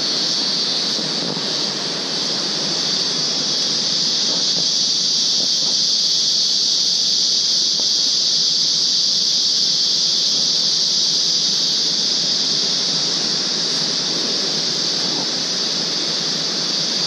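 Insect chorus droning in tropical forest: a loud, steady high-pitched buzz that holds unchanged throughout, over a lower rushing hiss.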